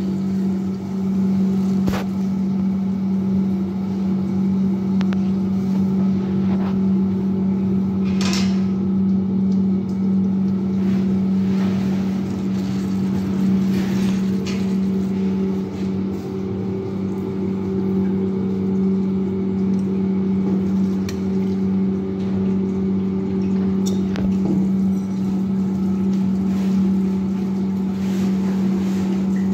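Hydraulic bench water pump running steadily, a loud even hum, as it feeds water to a Hele-Shaw apparatus. A few faint clicks and a short hiss about eight seconds in.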